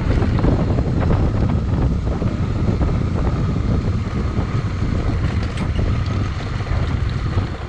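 Wind rushing over the microphone of a moving motorcycle, with the bike running underneath it.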